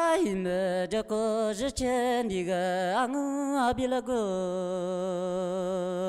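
Two mouth harps, Yi kouxian, played together: a buzzing drone rich in overtones whose pitch steps between notes and wavers.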